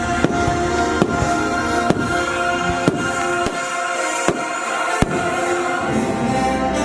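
Fireworks shells bursting in sharp bangs about once a second, over the show's music played on loudspeakers.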